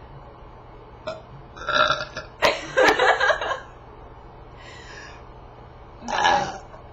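A person belching, forcing the burps up on purpose: a string of separate belches, the longest and loudest from about two and a half to three and a half seconds in, with fainter ones later.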